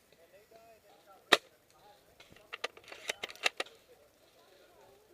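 Airsoft guns firing: one sharp shot about a second in, then a quick string of shots, with faint distant voices.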